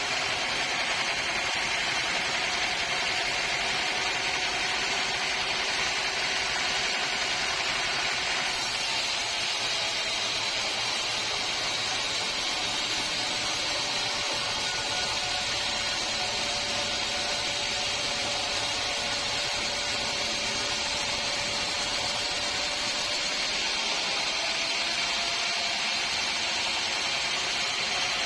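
Band sawmill running steadily with a constant machine noise. Its tone dips a little through the middle stretch and rises again near the end.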